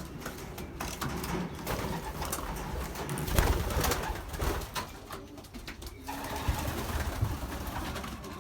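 Racing pigeons cooing inside a small loft, with scattered clicks and rustling and a louder burst of noise about three and a half seconds in.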